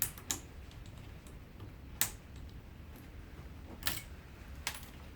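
Sharp clicks and taps of small metal parts being handled, about five separate ones spread out, as a small piece of sheet tin is worked out of a small electric motor's cast aluminum housing.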